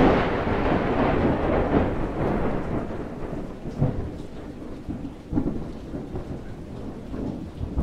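Thunder rumbling after a close clap, fading over several seconds with a few renewed rolls, over steady rain falling.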